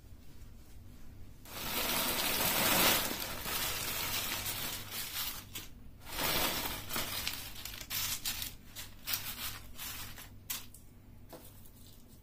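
Tortilla chips poured from a crinkling chip bag into a glass dish: a rush of rustling and crunching about a second and a half in and again around six seconds, then scattered clicks and crackles as chips drop and settle.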